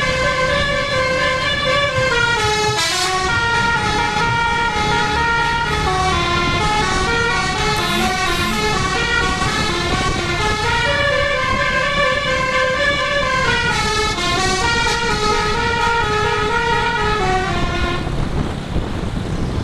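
Telolet horn, the multi-trumpet musical air horn fitted to Indonesian buses, playing a long melody of chords that step up and down, cutting off near the end.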